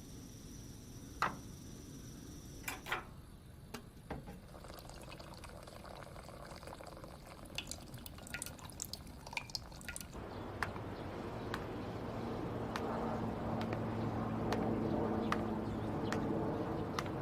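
Water dripping in irregular single drops. From about ten seconds in, a low steady hum and hiss slowly grow louder beneath the drips.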